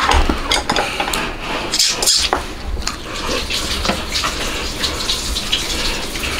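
Close-up eating sounds from a steamed crab: chopsticks and fingers picking meat from the shell make a run of small clicks and scrapes, mixed with wet sucking and chewing.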